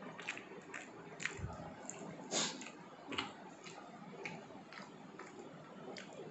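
Quiet eating sounds from a meal taken by hand: irregular soft clicks and chewing noises, a few louder than the rest.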